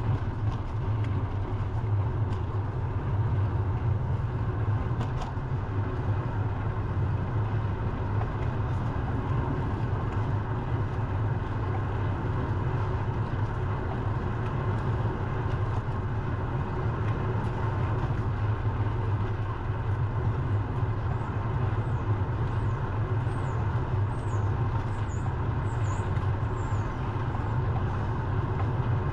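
Steady low rumble of wind and road noise on a bicycle-mounted GoPro while riding, with a few short high chirps in the last quarter.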